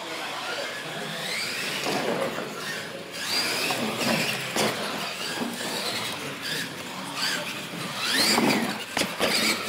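Radio-controlled monster trucks racing on a concrete floor: their motors and gears whine, rising and falling in pitch as they speed up and slow down, with tyre squeal. There are a couple of sharp knocks as a truck goes over the ramps, one around the middle and one near the end, where it gets loudest.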